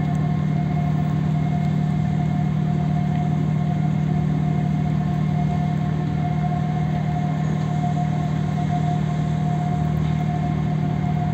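A large engine running steadily, a constant low hum with a thin steady whine above it.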